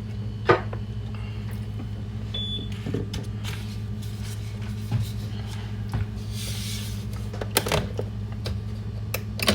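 Scattered small clicks and knocks of coffee things being handled at a kitchen counter, over a steady low hum.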